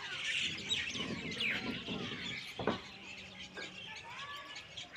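Many small birds chirping and twittering together in a busy chorus, with one sharp knock about two and a half seconds in.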